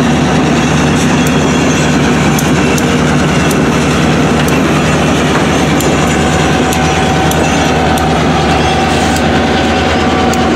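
CSX SW1001 switcher's diesel engine running as it slowly pulls a string of tank cars over a street grade crossing, the cars rumbling by with regular sharp clicks. A wheel squeal rises in pitch near the end.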